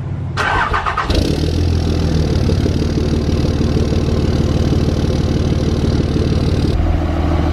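Dodge Ram's Cummins turbo-diesel being started: a short burst of cranking that catches about a second in, then the engine idles steadily.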